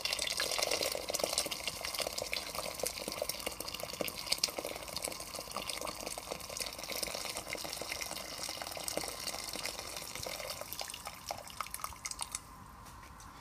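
Boiling water poured in a steady stream into a stainless-steel pressure cooker already holding stock, splashing into the liquid as the pot is filled to its maximum line. The pour stops about a second before the end.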